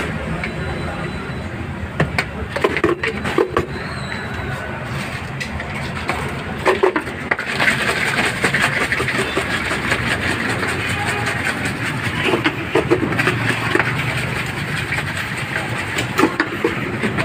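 Indistinct background voices over a steady rumble of traffic, with scattered sharp clicks and knocks; the voices grow busier about halfway through.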